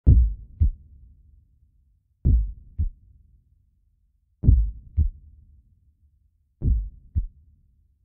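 Heartbeat sound effect: four low double thumps, lub-dub, a pair about every two seconds.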